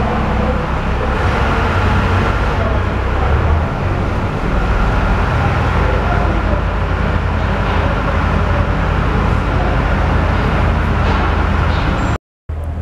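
Steady low mechanical rumble, like a vehicle engine running, with a faint thin whine above it.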